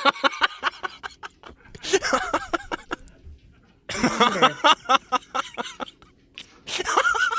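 A person laughing in several short bursts with brief pauses between them. Near the end a high, held tone begins.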